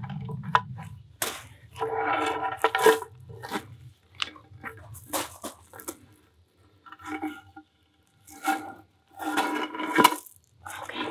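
Natural slate slab scraping and grinding on a bed of pea gravel as it is tipped up and lowered into place, with gravel crunching and small stones clicking against the stone. The scrapes come in several rough passes, loudest near the end.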